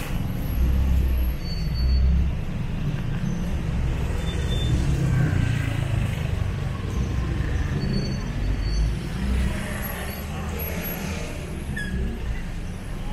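Street traffic: a steady rumble of passing cars and other road vehicles, swelling and easing as they go by.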